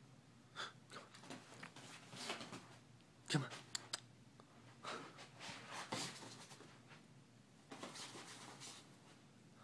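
Soft rustling and light bumps of a French bulldog puppy moving about on bed covers, with a sharper knock about three and a half seconds in.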